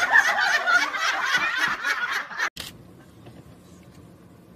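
A large group of adults and children laughing and shrieking together. About two and a half seconds in it cuts off abruptly to a faint low hum inside a car.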